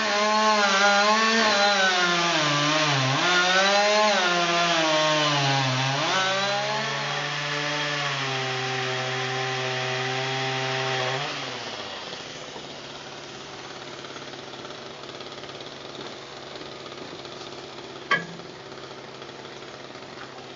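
Pole saw's small engine running hard, its pitch rising and falling as it saws wood, then holding steady. About eleven seconds in it drops to a quieter, lower idle. There is one sharp knock near the end.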